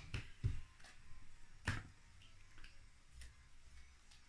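Sleeved trading cards being handled and laid down on a playmat: a scattering of light taps and clicks, the clearest one a little under two seconds in.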